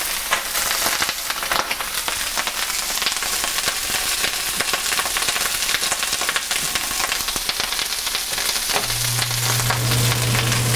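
Chopped pork sisig frying hard in a very hot pan, a dense sizzle full of crackles as a crust forms on the bottom. A steady low hum comes in near the end.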